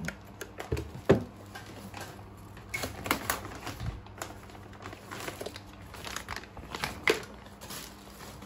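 Objects being handled and moved about: irregular clicks and knocks with some crinkling, loudest about a second in.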